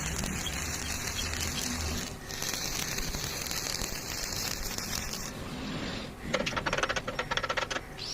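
Steady hiss of welding work, then, about six seconds in, a burst of rapid irregular crackling lasting about a second and a half, like an arc crackling as a bead is laid.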